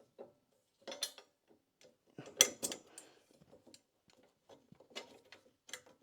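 Metal fittings of a bike trailer clicking and clinking as a part is worked into a hole that won't quite fit. Irregular knocks and clatter, the loudest about two and a half seconds in.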